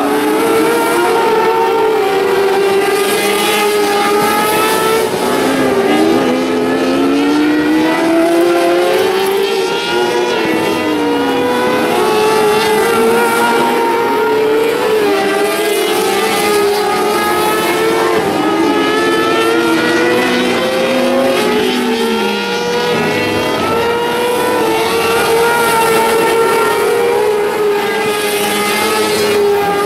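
A pack of winged 600cc micro sprint cars racing on a dirt oval, several high-revving motorcycle-derived engines heard at once. Their pitch keeps rising and falling as the cars accelerate down the straights and lift for the turns.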